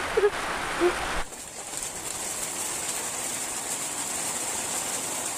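Steady outdoor hiss with a couple of brief voice sounds in the first second; after a cut about a second in, insects buzz steadily at a high pitch.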